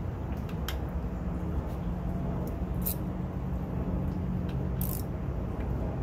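A few light, sharp mechanical clicks, about three, spaced a second or two apart, over a steady low rumble.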